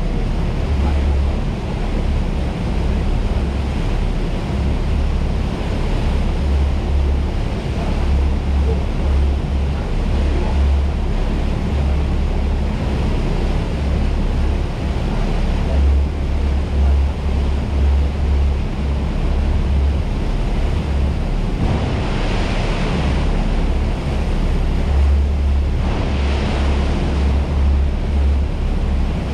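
Twin MAN V8 diesel engines driving Marine Jet Power 350X waterjets at speed: a deep, steady drone under the rush of the jet wake and wind buffeting the microphone. The hiss surges louder twice near the end.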